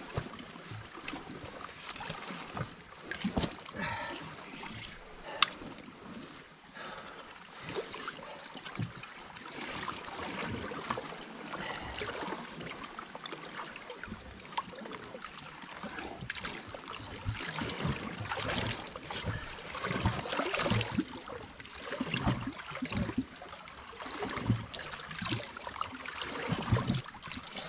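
Sea water lapping and sloshing against shoreline rocks, with irregular knocks and scuffs from a large common skate being handled and measured on wet, weed-covered rock, including one sharp knock about five seconds in.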